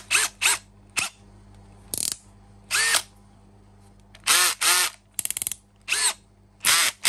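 Makita XFD11 18V brushless cordless drill-driver run in about ten short trigger pulls. Each one is a quick whir that rises in pitch as the motor spins up and falls as it stops. One burst, a little past the middle, rattles with rapid clicking.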